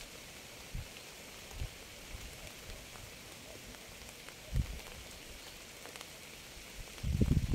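Steady rain hiss with a few isolated low thuds, like heavy drops landing close by. About seven seconds in, a much louder, irregular low rumbling sets in.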